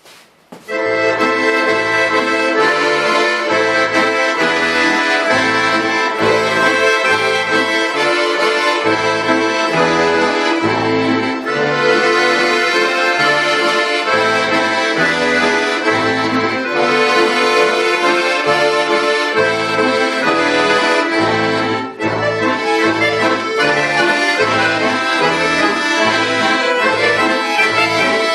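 Accordion playing a solo piece: sustained chords in the right hand over a steady, pulsing bass, starting just under a second in.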